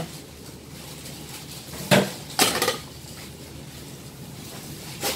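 A few short clatters of kitchen dishes and utensils knocking together, about two seconds in and again half a second later, over a low steady hiss.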